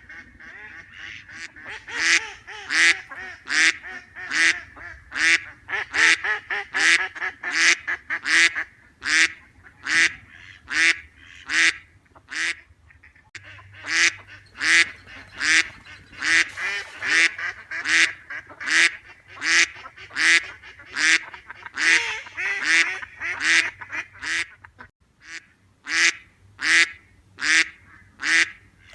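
Ducks quacking in a long run of loud, repeated calls, about one or two a second, with fainter calls in between and a short pause about twelve seconds in.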